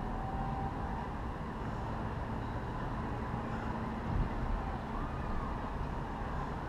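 Steady city street ambience with distant traffic noise.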